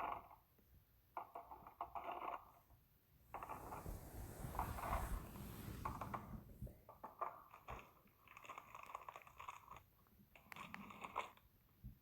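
A person's stomach growling: faint, irregular bursts of gurgling rumbles, with a longer, noisier rumble from about three to six seconds in.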